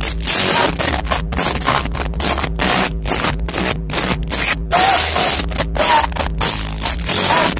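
Rock band playing live, heard from the crowd: loud guitars, bass and drums on a riff broken by many short, sharp stops.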